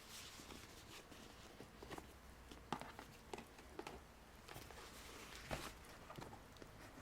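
Quiet handling sounds: scattered soft taps and clicks with light rustling, a dozen or so irregular strokes. The loudest come a little under 3 s in and again about 5.5 s in.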